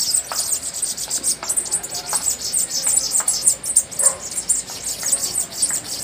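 A flock of small songbirds chirping together, a dense overlapping stream of quick, high, downward-sliding chirps with a few lower notes mixed in.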